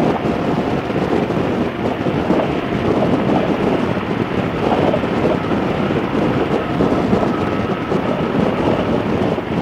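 Motorcycle riding at road speed: a steady rush of wind buffeting the microphone over the engine and road noise.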